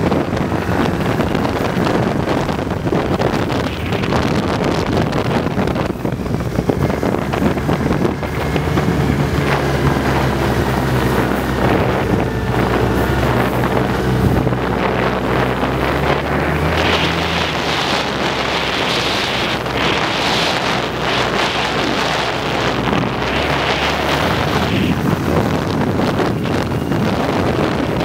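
Snowmobile engine running steadily while riding along a trail, with heavy wind noise on the microphone. A broad hiss swells for several seconds in the latter part.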